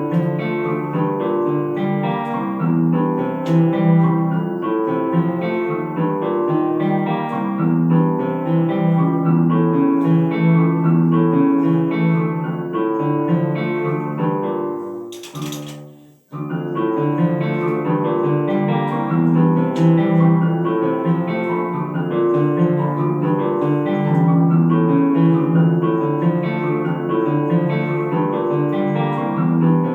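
Instrumental background music with a steady rhythm; it fades out about halfway, then starts again abruptly.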